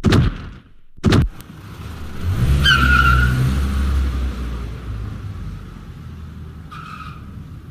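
Car sound effect: two sharp slams about a second apart, like car doors shutting, then an engine starts and the car pulls away with a brief tyre squeal. The engine runs on, easing off, with another short squeal near the end.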